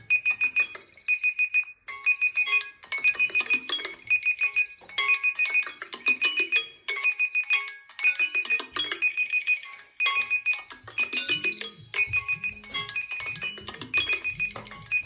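Smartphone alarm and timer tones sounding together: a repeating pattern of rapid, high electronic beeps over a melodic ringtone tune, with a low bass line joining about two-thirds of the way in.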